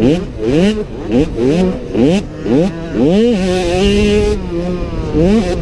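65cc two-stroke motocross bike engine revving hard in quick surges, about six rising revs in the first three seconds, then held at steady high revs for over a second before revving up again near the end.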